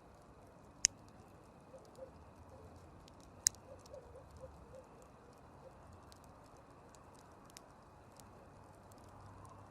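Campfire crackling: scattered faint ticks over a soft steady hiss, with two sharp loud pops, one about a second in and another about three and a half seconds in.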